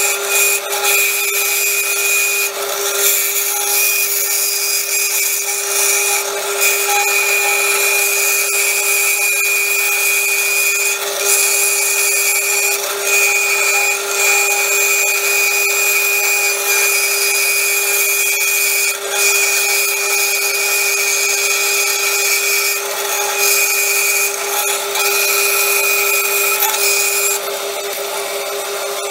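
Jet variable-speed bandsaw with a 6 mm bimetal blade cutting a curved profile in 12C27 stainless steel sheet: a steady motor hum under the rasp and hiss of the blade in the steel, with a high ringing note. Near the end the cutting noise eases while the saw keeps running.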